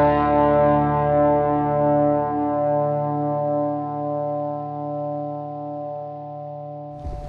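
Background music: held electric guitar chords with effects, slowly fading out. A sudden noisy sound breaks in at the very end.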